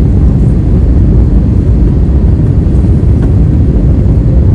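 Steady low rumble of an airliner in flight, heard from inside the passenger cabin: engine and airflow noise, with a faint steady hum.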